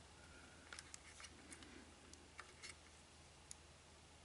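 Near silence with faint scattered small clicks, about a dozen, mostly in the first three and a half seconds: wires and spade connectors on a bridge rectifier being handled.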